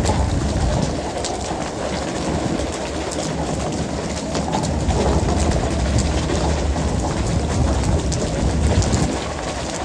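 Fishing boat's engine droning steadily under a constant wash of water splashing along the hull, with many short sharp knocks and slaps scattered through it.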